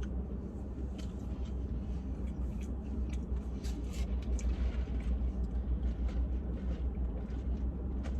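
Steady low rumble of a car heard from inside the cabin, with scattered faint clicks and rustles.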